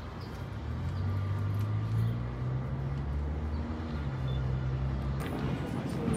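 A vehicle engine's low, steady hum that shifts slightly in pitch, giving way to broader, noisier traffic-like sound near the end.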